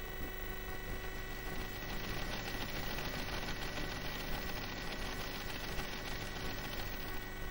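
Steady electrical hum and hiss with a thin high whine held on one pitch, and no other sound.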